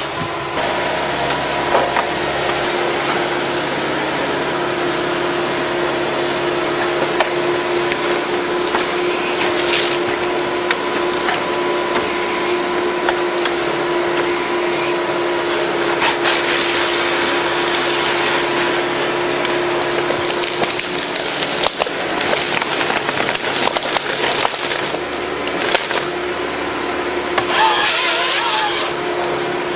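Forestry harvester working timber: its engine and hydraulics hum steadily while wood cracks and splinters under the harvester head. The cracking swells into louder bursts several times, near a third of the way in, past the middle and near the end.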